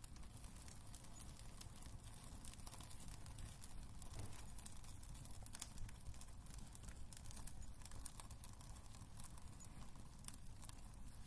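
Wood fire burning in a fireplace, with a soft steady low rumble and frequent irregular sharp crackles and pops.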